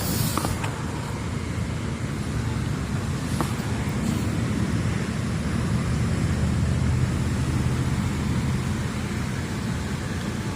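Steady low rumble of road traffic crossing the bridge, with a couple of faint clicks.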